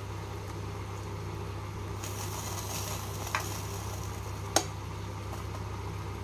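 Tomato and date chutney sizzling in a pan over a steady low hum; the sizzle grows a little about two seconds in. A metal utensil clicks lightly against the pan twice, the second click sharper, about a second apart.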